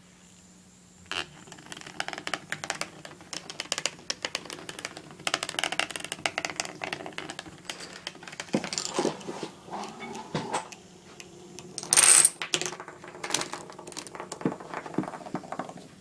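Homemade Rube Goldberg chain-reaction machine running: a rapid string of small clicks and rattles as toy parts roll, tip and tumble, starting about a second in, with heavier knocks and one loud, sharp clatter about twelve seconds in.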